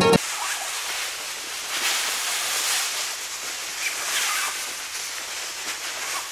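Plucked-string music cuts off just after the start. It leaves a steady hiss with faint, indistinct sounds in it.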